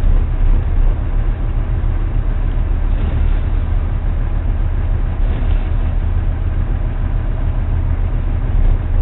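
Motor cruiser's engine running steadily at low speed, a loud even low drone heard through a camera mounted on the boat.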